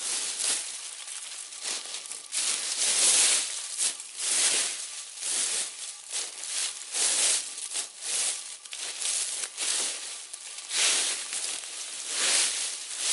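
Campfire burning, crackling in irregular surges.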